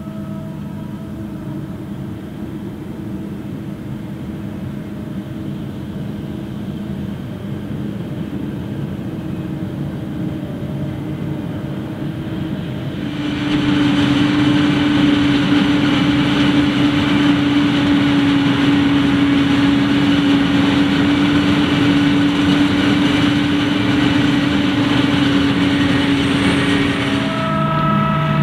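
John Deere 8500i forage harvester chopping maize, with a tractor and silage wagon running alongside: a steady heavy engine drone with a constant hum. About halfway through it suddenly becomes louder, with a strong steady hum and more hiss, as the machines are close by, then drops back near the end.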